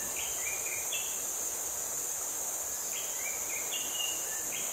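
Steady high-pitched insect chorus, with a bird calling a phrase of short whistled notes twice: at the start and again about three seconds in.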